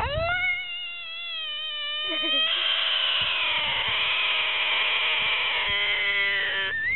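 American bullfrog screaming with its mouth wide open: one long wail, the distress call a frog gives when grabbed. It starts on a rising pitch, turns louder and harsher about two and a half seconds in, and breaks off at the very end with a short upward squeal.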